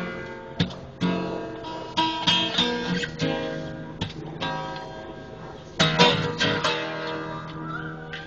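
Acoustic guitar playing a blues: plucked and strummed chords and single notes, each stroke ringing out and fading before the next.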